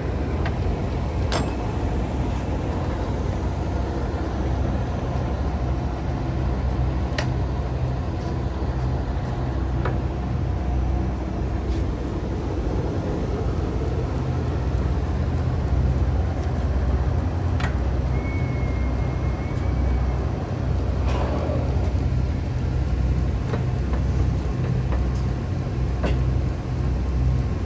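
1978 Monarch 613 engine lathe running while chasing a thread: a steady drone from the spindle drive and geartrain as the carriage feeds along the leadscrew. A few sharp clicks, and a brief high whine about two-thirds of the way through.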